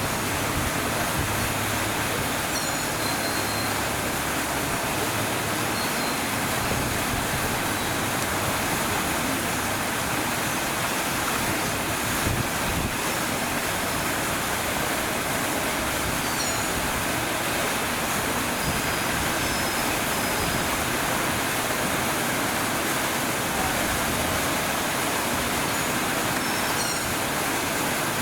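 Fountain water splashing and pouring in a steady rush, with a few faint high chirps now and then.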